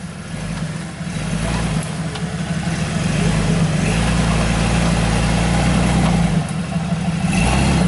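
Jeep Wrangler YJ engine working at low revs as the Jeep crawls slowly out of a hole off-road, getting louder over the first few seconds and then holding steady.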